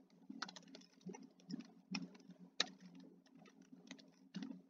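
Faint, irregular clicks of typing on a computer keyboard: a string of separate keystrokes at an uneven pace.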